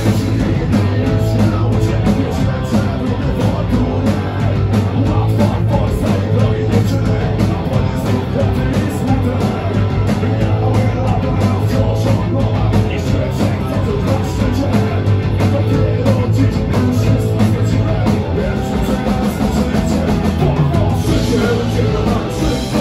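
Street punk band playing live: electric guitars, bass and drum kit, loud and continuous with a steady driving beat.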